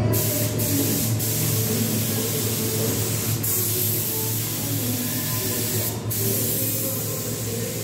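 Steady hiss of compressed air from a paint spray gun, briefly breaking off a few times, over a low steady hum.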